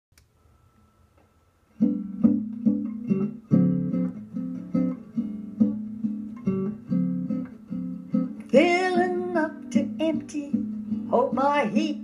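Acoustic guitar intro in a steady picked rhythm, starting about two seconds in after near silence. A woman's singing voice comes in briefly past the middle and again near the end.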